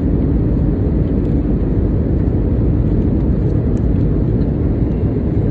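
Steady low cabin noise of a passenger airliner in flight.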